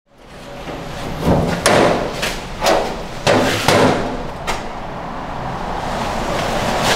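Steel apartment front door being opened: about seven clunks and knocks from the lock, handle and door in the first four and a half seconds, then a steady low hum.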